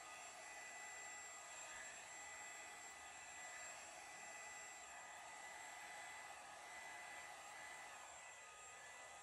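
Hand-held blow dryer running steadily, a faint airy whoosh with a thin high whine, as it blows wet acrylic paint across a canvas in a Dutch pour.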